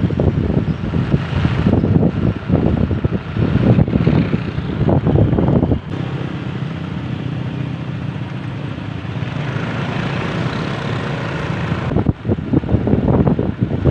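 Road vehicle running, with wind buffeting the microphone: gusty rumble for the first half, settling into a steadier drone about six seconds in.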